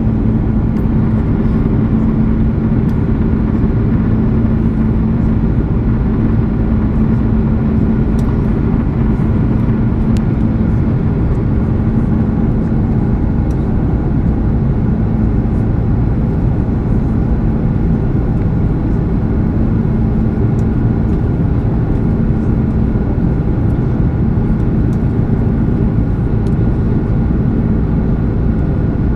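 Steady cabin noise inside a Singapore Airlines Airbus A330 in flight: the even rush of engines and airflow, with a steady low hum under it.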